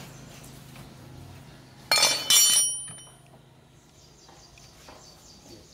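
Steel hand tools clanking on a concrete floor: two sharp metal clanks about half a second apart, about two seconds in, each with a brief high ringing.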